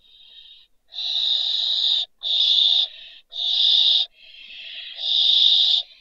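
Barn owl giving a series of harsh, hissing screeches, each about a second long. There are four loud ones, with fainter calls in the gaps between them.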